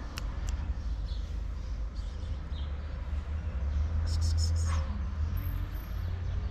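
Low, uneven rumble of wind on the microphone, broken by a couple of sharp clicks near the start and a quick run of short clicks about four seconds in, made by hand to call a stray kitten over.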